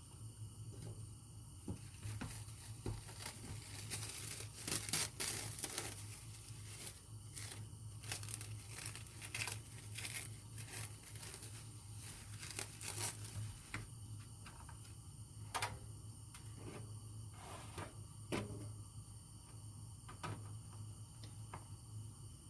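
Something being crinkled and torn by hand: a run of rustles and short tearing strokes, busiest in the first half, over a steady low hum.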